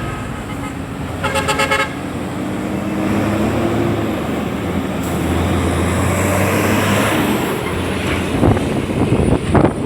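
Busy road traffic: vehicle engines running and cars passing, with a car horn tooting briefly about a second and a half in.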